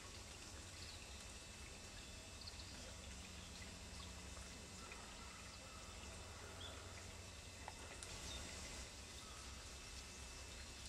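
Quiet woodland ambience: the faint trickle of a small creek, with a few faint high chirps and small ticks over a low steady rumble.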